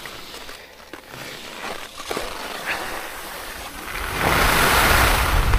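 A few light knocks, then from about four seconds in a loud rushing of wind over a helmet camera's microphone, with skis on snow, as a skier picks up speed downhill.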